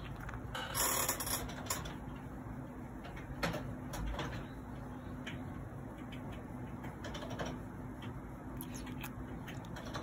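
Close-up handling noise: soft rustles and scattered small clicks from fingers moving in a sleeping cat's fur and on the phone. The loudest rustle comes about a second in, over a faint steady hum.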